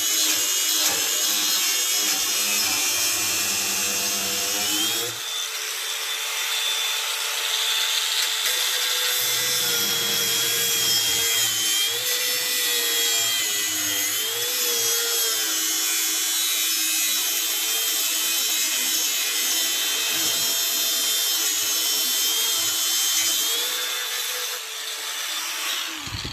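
DeWalt DCG405FN cordless brushless angle grinder running under load while cutting, its motor pitch dipping and wavering as the disc bites, over a steady hiss of grinding. It stops abruptly at the end.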